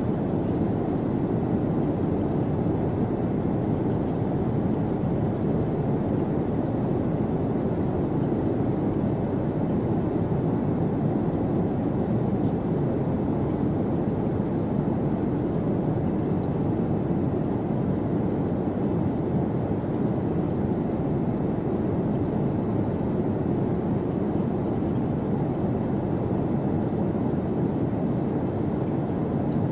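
Steady, even low rushing noise with no tune, beat or pattern: a masking noise bed of the kind laid over a subliminal track.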